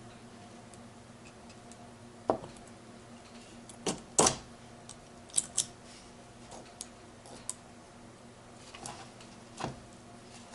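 Small metal parts of a manual gearbox synchro hub clicking and tapping as its blocks and springs are worked into place by hand: about eight irregular sharp clicks, the loudest a little past four seconds in, over a faint steady hum.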